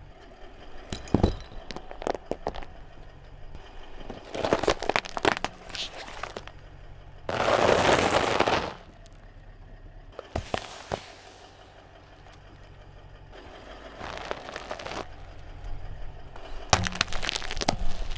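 A car tyre rolling over and crushing small brittle objects: several separate bursts of crackling and crunching, with a louder rushing noise lasting over a second about eight seconds in.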